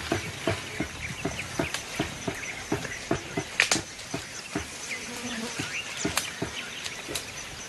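Irregular crackling and snapping of leaves and stems, a few sharp cracks a second, as mountain gorillas feed on vegetation, over a faint buzz of insects.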